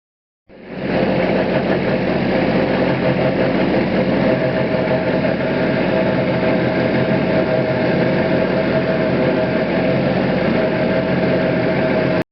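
An engine running steadily, with a constant hum and a few fixed tones. It starts abruptly about half a second in and cuts off just before the end.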